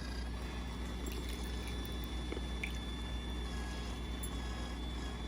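A small electric appliance motor running with a steady hum and a faint high whine, with light liquid sounds.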